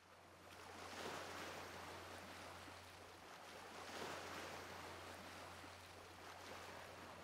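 Faint ocean surf: a soft wash of waves that fades in, swelling about a second in and again about four seconds in, over a low steady hum.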